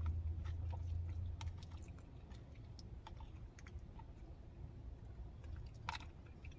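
Close-miked chewing of chili and cornbread: faint, scattered wet mouth clicks, with a sharper click near the end. A low rumble fades out in the first second or two.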